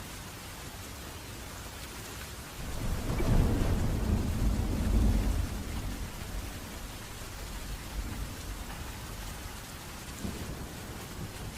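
Steady rain with a roll of thunder: the rumble comes in about two and a half seconds in, peaks, and fades over the next few seconds, leaving the rain hiss.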